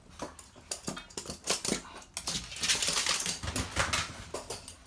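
Toy poodle scrambling on the obstacle: a run of quick clicks and scuffs, with a longer rustling stretch in the middle and a brief high whine about a second in.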